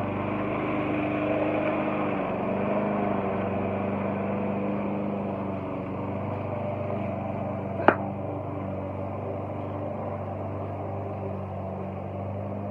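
Walk-behind gas lawn mower engine running steadily while it is pushed across the grass, with one sharp click about eight seconds in.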